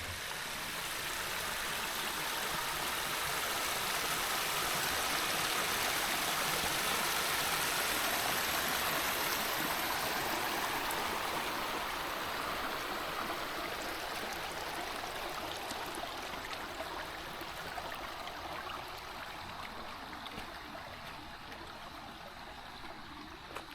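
Spring run water flowing over limestone, a steady rush and splash that swells for the first several seconds and then slowly fades.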